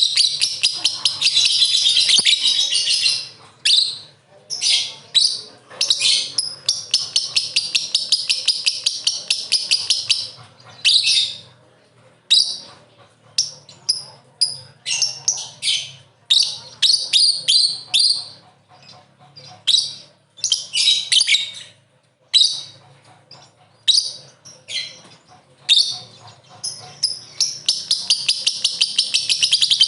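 Lovebird singing its long chattering song (ngekek): rapid high-pitched trills in bouts of several seconds, broken by shorter bursts of chirps, with long bouts at the start, in the first third and near the end.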